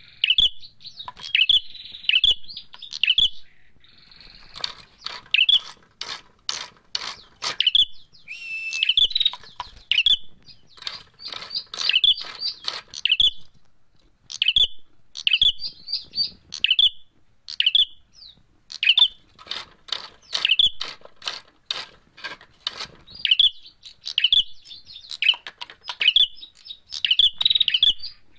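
Caged prenjak merah (ashy tailorbird) calling agitatedly: a steady run of sharp, high chips, broken several times by fast, dry rattling trills lasting a second or two.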